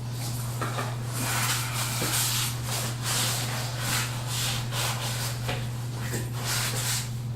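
Irregular scraping and rubbing strokes of PVC drain pipe and fittings being worked by hand, over a steady low hum.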